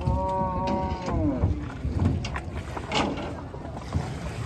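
A cow moos once, the call held and then sliding down in pitch, followed by scattered knocks and clatter of hooves on the wooden boat deck and plank ramp as cattle are led off.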